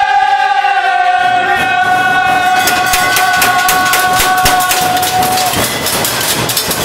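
A group of kitchen volunteers chanting: men's voices hold one long sung note for about five seconds, over a rising din of crowd noise with rapid sharp hits from a couple of seconds in.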